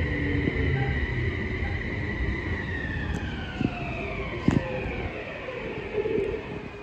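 Toei Mita Line 6300 series train's traction motor and inverter whine, several tones sliding steadily down in pitch as the train brakes, over low running rumble. A couple of short knocks come midway.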